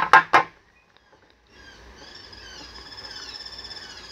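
A couple of sharp knocks as a battery is pressed into a plastic universal charger. Then, about one and a half seconds in, a rapid, steady run of high, falling chirps from small birds begins.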